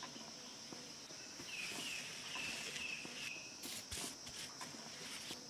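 A steady high insect drone, with a bird chirping a string of short calls in the middle, and footsteps on a stone path.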